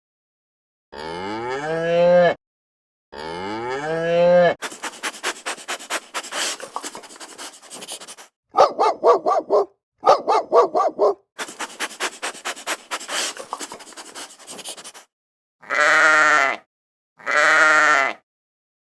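A sequence of farm-animal calls. First a cow moos twice, each moo rising in pitch. Then a dog barks in quick runs for about ten seconds. Near the end come two wavering sheep bleats.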